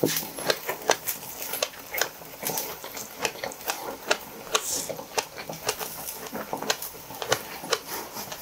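Close-miked chewing of a mouthful of sushi: a steady run of sharp, crunchy clicks, about two a second.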